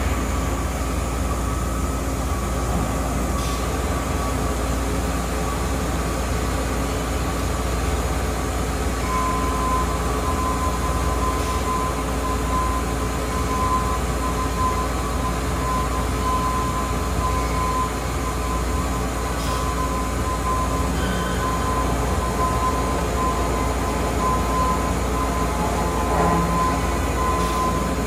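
DMG Mori Multisprint 36 CNC multi-spindle lathe running a machining cycle with coolant flowing: a steady low mechanical hum with several steady whining tones on top, one of which grows louder about nine seconds in.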